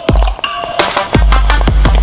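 Drum and bass music with sharp drum hits; a deep, sustained bass line comes in just after a second in.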